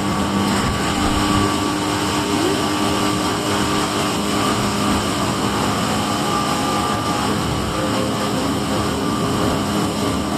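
Tobu 8000 series electric train running between stations: a steady rumble of wheels on rail with a motor and gear hum held at a few steady pitches.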